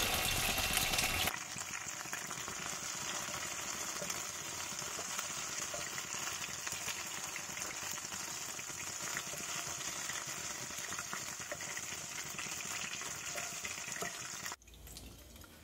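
Prawns frying in hot oil in a kadai, a steady sizzle, louder for about the first second, then dropping away sharply near the end.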